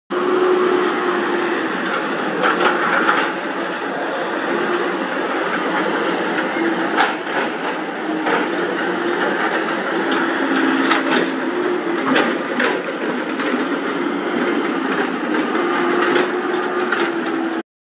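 Caterpillar 320B hydraulic excavator working: a steady diesel engine and hydraulic whine that shifts slightly in pitch as the arm moves, with scattered sharp knocks and cracks.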